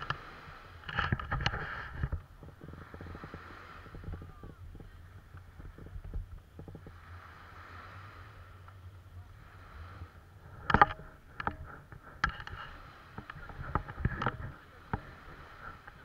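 Handling noise from a kitesurfer's body-worn camera as he handles his kite's control bar and lines: sharp knocks and rustles in clusters, about a second in and again from about eleven to fifteen seconds, over a low steady hum.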